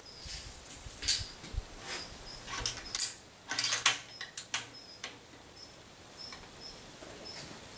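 A run of sharp metallic clicks and clacks over the first four to five seconds as the rifle's action and the steel recoil-testing jig are handled between shots. After that, faint background with small high chirps.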